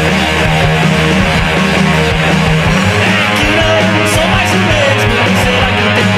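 Rock band music: guitars strummed over bass and drums. The bass line changes about halfway through, a wavering higher melody line comes in, and cymbal hits sound near the end.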